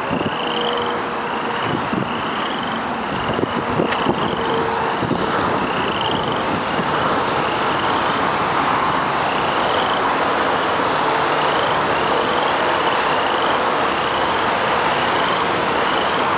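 Steady road-traffic noise from vehicles around a roadside truck stop. Over it, a short rising chirp repeats about every three-quarters of a second, until it stops about 11 seconds in.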